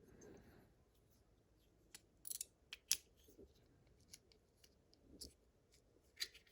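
Small metal clicks and scrapes of a pin-tumbler lock cylinder being shimmed apart: a scattering of short, sharp ticks a fraction of a second to about a second apart, the loudest about three seconds in.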